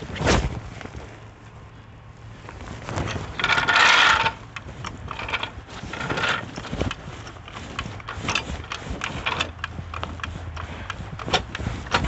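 Aluminium floor jack being positioned under a car and worked by its handle: clicks, knocks and scraping of metal on pavement. The loudest scrape comes about four seconds in, and a run of quick knocks follows later.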